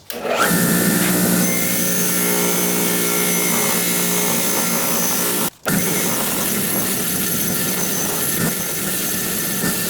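Electric power tool running at a steady speed: a constant motor hum under a loud, even hiss of the tool working metal. It breaks off for a split second about five and a half seconds in, then runs on.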